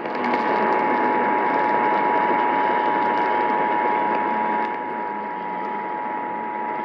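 Emergency Alert System two-tone attention signal (853 Hz and 960 Hz sounded together), held as one steady tone and heard over AM radio reception with heavy static hiss. It is the alarm that announces an emergency alert broadcast.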